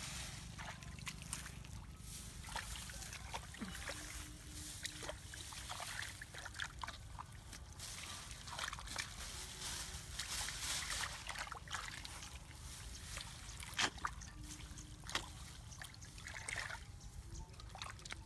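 Hands digging and scooping in wet mud and shallow water: irregular squelches, small splashes and trickles, with a couple of sharper slaps about fourteen and fifteen seconds in.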